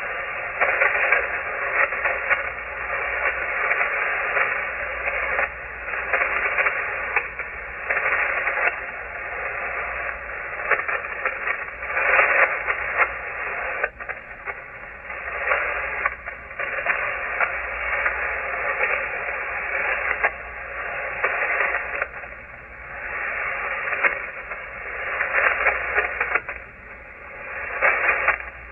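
Shortwave receiver static on the 40-metre amateur band: a rushing hiss that swells and fades every second or two, with no clear voice coming through.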